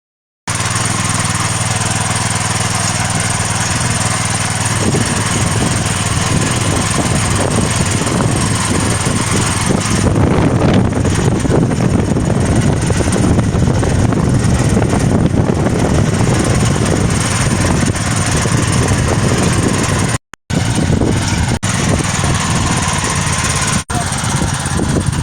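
Diesel tricycle engine running steadily under load while pulling a plough. It grows louder and rougher about ten seconds in. The sound cuts out for an instant a few times near the end.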